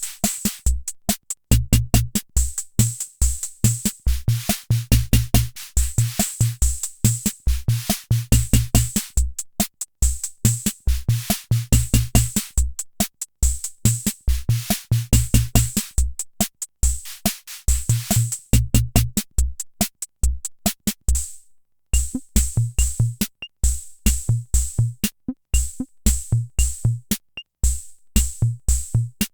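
Hammond Auto-Vari 64 analog rhythm machine playing a preset beat: low pitched drum thumps under hissy high cymbal-like hits in a steady pattern. About 21 seconds in, the beat stops for a moment and a sparser variation starts, with fewer low thumps and crisp ticks on top.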